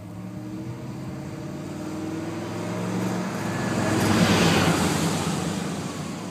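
1996 Ford Explorer with the 5.0L Windsor V8 accelerating toward and past, its engine note rising as it comes. Tyre and road noise is loudest as it passes about four seconds in, then fades.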